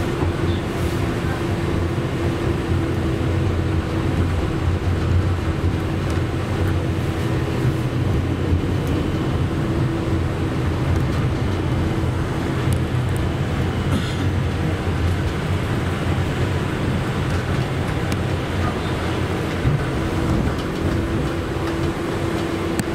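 KTM-31 (71-631) tram running along its track, heard from inside the driver's cab: a steady rumble of wheels and running gear with a constant hum.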